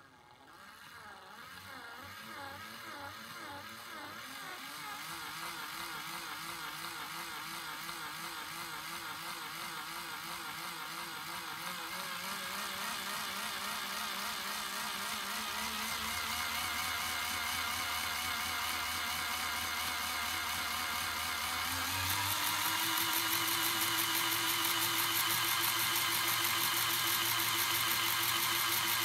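LEGO locomotive model's electric motor and gearing driving the wheels and side rods on a bench test, a whine rising steadily in pitch and loudness as it speeds up. About three-quarters of the way through it steps up to a higher, louder speed.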